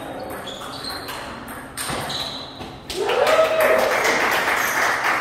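Table tennis ball clicking off paddles and table in a quick rally. About three seconds in, shouting and cheering break out and run louder than the rally.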